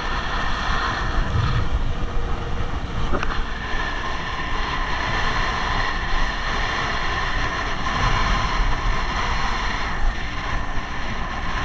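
Strong gusting wind roaring over an action camera's microphone while windsurfing at speed over choppy water, a steady loud rush with heavy low rumble.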